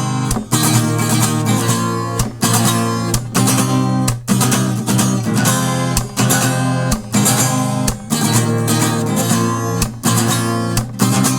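Acoustic guitar strummed in a steady rhythm, with chords played without singing.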